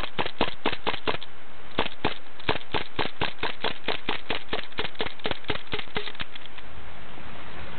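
Rapid, evenly spaced mechanical clicking from an airsoft gun, about five clicks a second. It pauses briefly about one and a half seconds in and stops about six seconds in.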